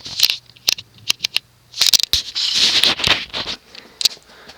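Ceiling fan's reverse pull chain being pulled: a series of sharp clicks and short rattling, scraping bursts from the bead chain and its switch. A low steady hum underneath stops about three and a half seconds in.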